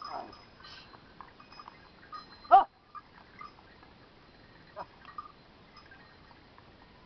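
Short calls of farm livestock: a faint falling call at the start, one loud brief cry about two and a half seconds in, and a fainter short one near five seconds.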